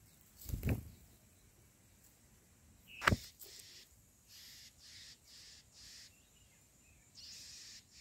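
Tailorbird nestlings begging at the nest: short, hissy, high calls, about two a second, with a longer one near the end. A soft thump about half a second in and a sharp click about three seconds in come from the nest or the grass stems.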